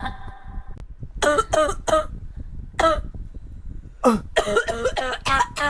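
A person coughing in a string of short, harsh coughs, two clusters with a brief pause between: a smoker's cough, put down to Surya kretek cigarettes.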